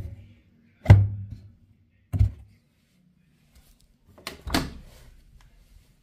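Indesit WIL 85 washing machine drum being rocked by hand, clunking heavily three times as it moves in its badly worn bearings.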